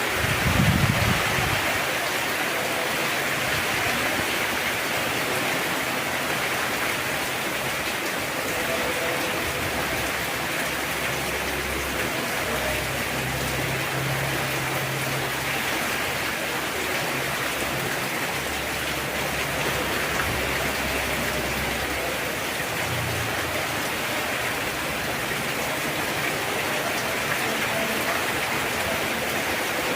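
Heavy rain falling steadily, a dense even hiss. A low rumble dies away in the first two seconds.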